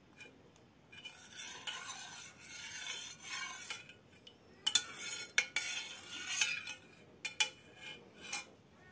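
A metal spoon stirring liquid in an enamel pot, scraping against the pot, with several sharp clinks of the spoon on the pot's sides in the second half.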